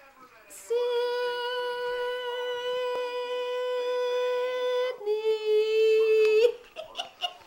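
A person humming two long, steady held notes, the second a little lower than the first, with short voice sounds after it near the end.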